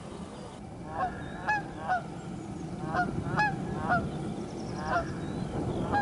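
Geese honking: a string of short, clipped calls, mostly in quick runs of three, over a low steady background rumble.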